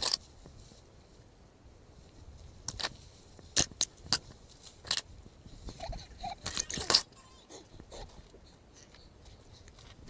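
Irregular crunching and rustling of a hiker's footsteps and scrambling over dry leaf litter on a forest slope, with knocks from the swinging handheld camera.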